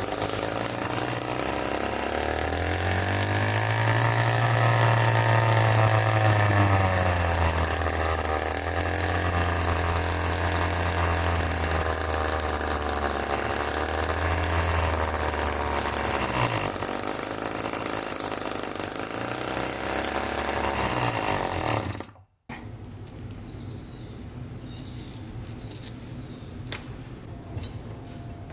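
Homemade single-cylinder two-stroke engine, converted from a refrigerator compressor, running on fuel squirted into its intake port. Its speed rises in the first few seconds, then wavers up and down. The sound cuts off suddenly about 22 seconds in, leaving quieter background noise.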